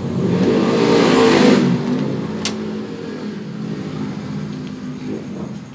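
A motor vehicle engine running and revving, its sound swelling to its loudest about a second in and then easing off. A single sharp click comes about two and a half seconds in.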